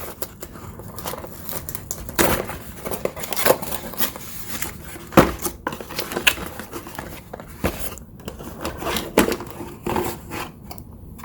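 Packaging being handled as the contents are taken out of the box: rustling and crinkling with irregular clicks and knocks, one sharper knock about five seconds in.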